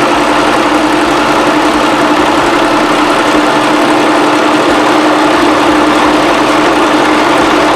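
Singer Promise 2 electric sewing machine running steadily at speed, stitching stacked hair weft tracks, with an even motor hum throughout.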